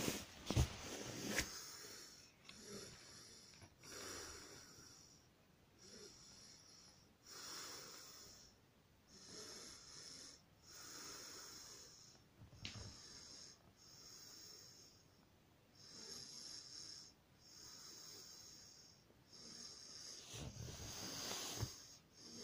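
A person breathing slowly and regularly close to the microphone, a soft breath every second or two, with a couple of light handling clicks.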